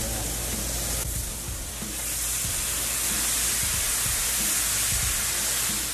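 Chicken wings sizzling on a hot Blackstone griddle's steel flat top. About two seconds in, water squirted from a squeeze bottle onto the hot plate flashes to steam, and the hiss grows louder.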